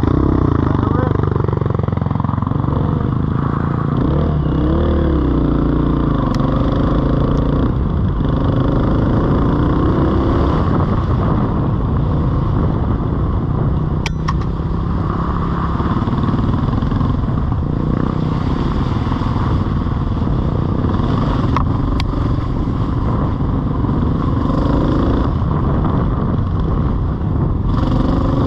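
Off-road vehicle engine running under way, its pitch rising and falling over and over as the throttle is worked, with a few sharp clicks along the way.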